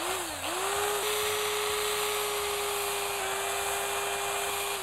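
Electric hand drill spinning a slotted screw head against 220-grit sandpaper on a wooden block: a steady motor whine, wavering in pitch for the first second as the trigger is worked, over the hiss of the screw head grinding on the paper. The drill is let off at the very end and starts to wind down. The sanding polishes the screw head to a concentric-circle finish.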